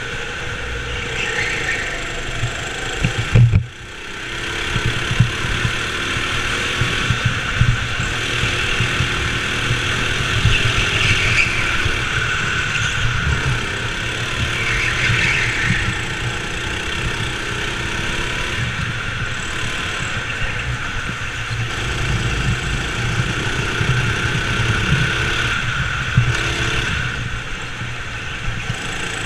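Go-kart motor running steadily as the kart drives laps, heard from on board. A single loud knock comes about three and a half seconds in.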